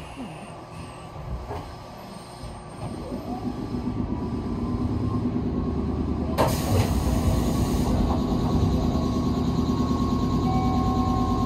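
Electric train standing at a station platform: its onboard machinery hum builds up about three seconds in and then runs steadily. A loud burst of air hiss comes about halfway through, lasting a second or two.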